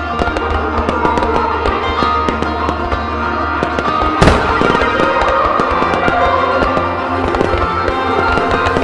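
A starmine of aerial firework shells bursting in quick succession over music, with one louder bang about four seconds in.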